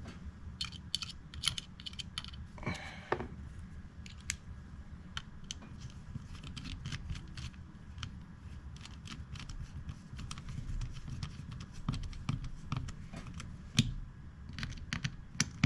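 Small irregular metal clicks and taps of a driver working tiny screws into a Kershaw pocket knife's handle, with a brief scrape about three seconds in.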